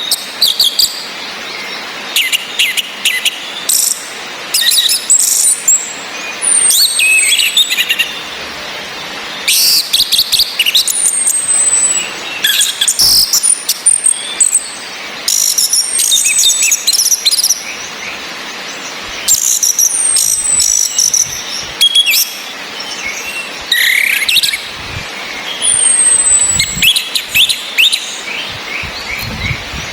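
Orange-headed thrushes calling: a female's thin, high whistles that slide down in pitch, repeated every few seconds, between bursts of rapid chattering song notes, over a steady hiss of rain.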